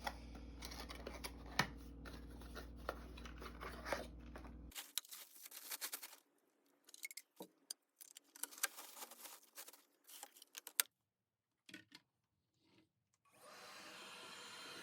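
Faint scattered clicks and light knocks over a low steady hum that cuts off about a third of the way in. After that come sparser clicks with short silent gaps, and a steady hiss starts near the end.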